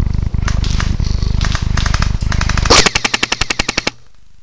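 Airsoft gun firing a full-auto burst of about a dozen shots a second for about a second, stopping abruptly, heard close through a gun-mounted camera. Before the burst there is a loud low rumble of handling and wind noise.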